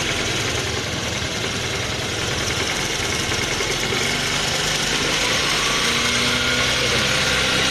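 Mahindra Gusto scooter's single-cylinder four-stroke engine idling steadily while the carburettor's idle-speed screw is turned to raise the idle a little, the engine growing slightly louder as it speeds up.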